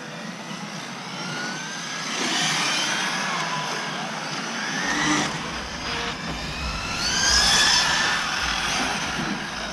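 Electric RC cars, including an Associated SR7, running laps, their brushless motors whining up and down in pitch as they accelerate and slow through the turns. Wind buffets the microphone from about five seconds in.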